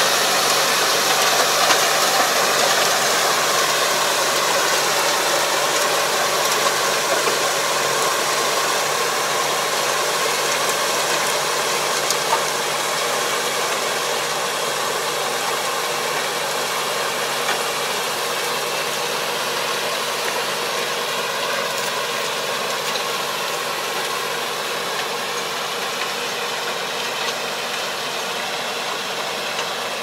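Kubota KL270 diesel tractor running steadily under load as it pulls a wide Kobashi harrow through a flooded rice paddy, puddling it. It grows gradually fainter as it moves away.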